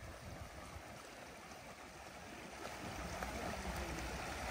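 Faint, steady rush of flowing river water, an even hiss with no distinct splashes. A low rumble grows gradually louder in the second half.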